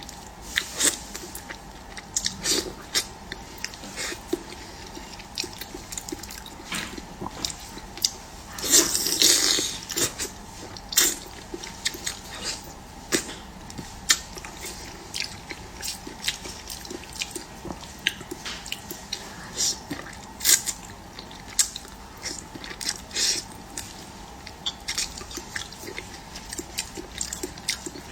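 Close-miked eating: wet chewing with a rapid, irregular run of mouth clicks and smacks, louder for a moment about nine seconds in.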